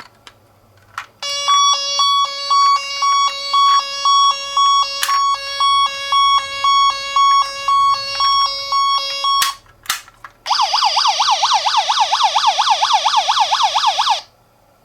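Toy ambulance minicar's electronic siren: a two-tone hi-lo siren alternating between a high and a low note for about eight seconds, then a click or two, then a rapid up-and-down warble that cuts off suddenly.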